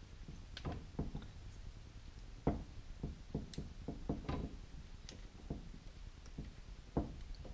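Quiet, scattered clicks and taps of plastic wire connectors being handled and pushed together at the motor end of a trolling motor, a snug fit on new parts; the sharpest clicks come about two and a half seconds in and near the end.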